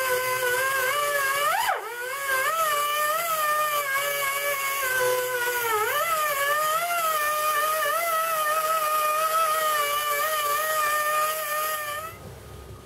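Pneumatic die grinder spinning a brass wire wheel against the vise's screw nut, wire-brushing it: a steady high whine with a hiss. Its pitch dips briefly twice, about 2 and 6 seconds in, and it stops near the end.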